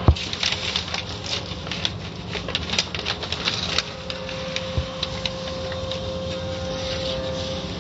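Automatic car wash running: one sharp thump, then a fast, irregular patter of clicks and taps as water spray and dripping hit the car, thinning out after about four seconds. A steady machinery hum and a faint steady whine run underneath.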